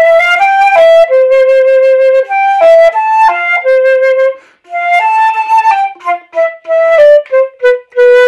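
Solo concert flute playing a melody: a first phrase of held and moving notes, a brief pause about four and a half seconds in, then a second phrase of shorter, separated notes stepping downward.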